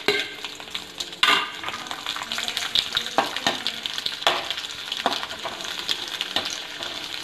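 Cashew nuts and raisins sizzling in hot oil in a metal kadai, with a perforated metal ladle stirring and scraping against the pan. Scattered clicks and knocks from the ladle, with a louder clatter about a second in.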